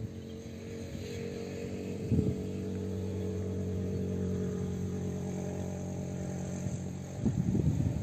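A motor engine running at a steady, even pitch, a low hum with several overtones that stops about seven seconds in. A brief rustle comes about two seconds in, and more rustling near the end.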